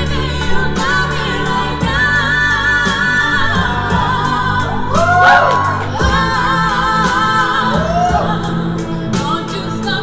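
Two women singing a duet into microphones over a backing track with a steady beat, with sliding vocal runs about halfway through.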